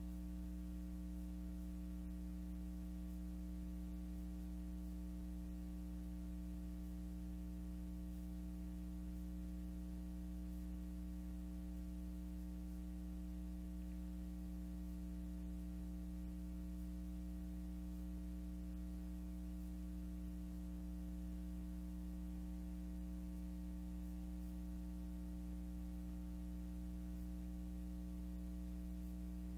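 Steady low electrical mains hum with a faint hiss and nothing else: the noise floor of a silent film's transfer.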